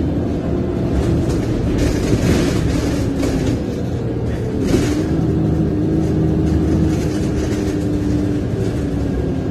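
VDL DB300 double-decker bus's diesel engine and drivetrain running under way, heard from the upper deck, with the body rattling. The engine note changes pitch about halfway through, around a short knock.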